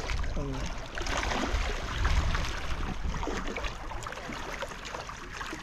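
Wind buffeting the microphone with the wash of the sea against a breakwater, an even noisy rumble that slowly eases off.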